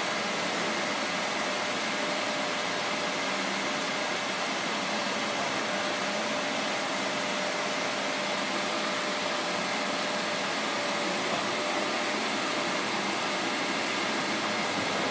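MAHO four-axis CNC universal milling machine running, a steady machine whir with a faint high whine as its rotary table turns.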